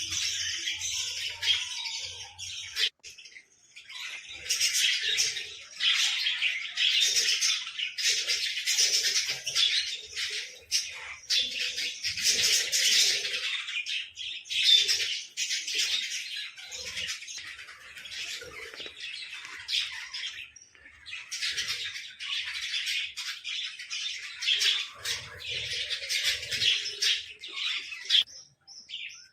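Small birds chattering and squawking in a dense, continuous stream of high chirps, with brief lulls about three seconds in and again around twenty seconds in.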